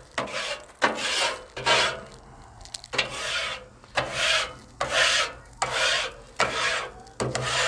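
A metal-bladed scraper with a wooden handle rasping across the steel cooktop of a Blackstone griddle, scraping off cooked-on food bits. It comes in repeated strokes, about one a second.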